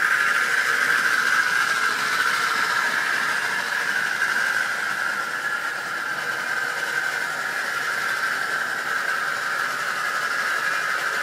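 Model railway goods train running on the track: a steady electric motor whine with rolling wheel noise, the pitch easing slightly lower partway through.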